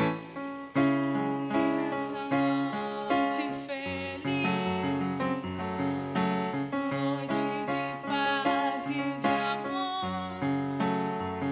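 Music played on a keyboard with a piano sound: held bass notes under a wavering melody line.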